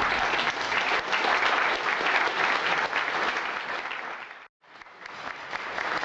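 Banquet audience applauding, a dense, steady clapping. It breaks off for a moment about four and a half seconds in, then carries on.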